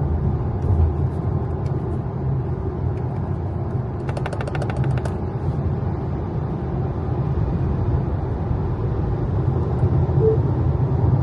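Steady tyre and road noise inside the cabin of a Tesla Model Y driving at motorway speed. About four seconds in there is a short, rapid rattle of clicks lasting about a second.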